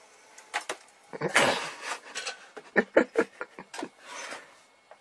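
Cat pawing at a plastic CD player: a string of sharp clicks and knocks, with a louder noisy burst of about a second near the start.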